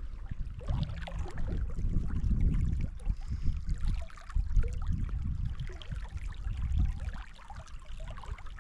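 Small seasonal stream running over its bed, a steady noisy wash mixed with uneven low rumbling that swells and fades.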